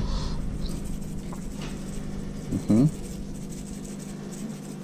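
Faint handling of raw fish fillets on a metal tray over a steady low hum, with a short rising pitched sound about two and a half seconds in.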